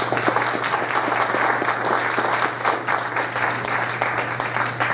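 Audience applauding, many hands clapping steadily, over a steady low hum.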